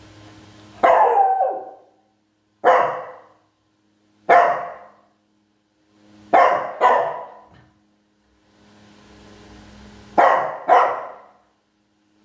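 Small Shih Tzu-type dog barking: seven sharp barks, spaced out, with two coming in quick pairs.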